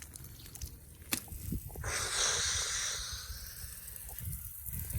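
Water spraying from a garden hose: a hiss that starts about two seconds in and fades away over the next couple of seconds, after a single sharp click about a second in.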